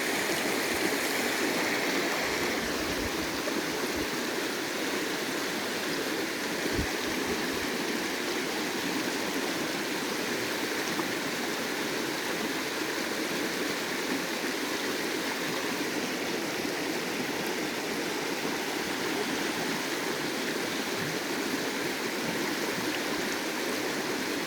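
River water rushing and running steadily over rocks, a continuous even wash.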